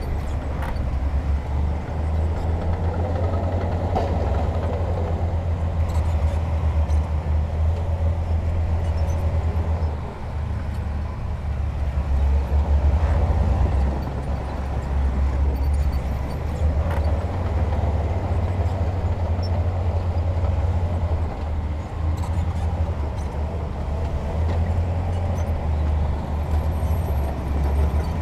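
Heavy diesel earthmoving machinery running continuously with a deep rumble that rises and eases with the load, with a few faint knocks.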